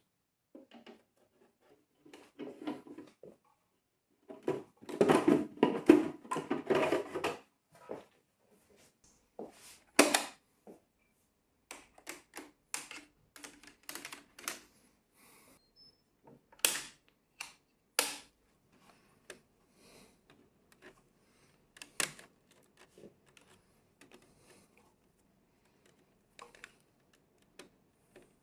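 Handling noise from opening an electrical panel: a screwdriver on the screws and the plastic cover being taken off. A few seconds of rattling and scraping about five seconds in, then scattered sharp clicks and knocks as tools touch the breakers.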